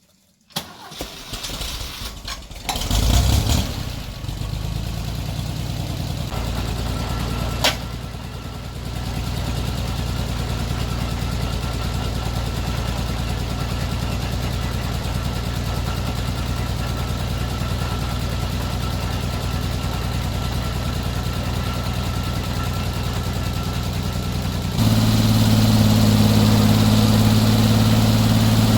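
An engine cranked and started, catching after a couple of seconds, then running at a steady idle; about three seconds from the end it is throttled up and runs louder and steadier.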